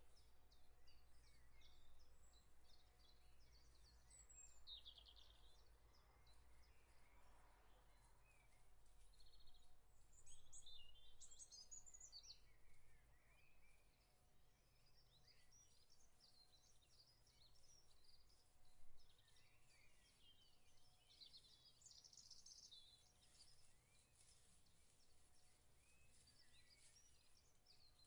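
Near silence: quiet outdoor ambience with faint, scattered bird chirps and short calls, a few of them in clusters, over a low steady rumble.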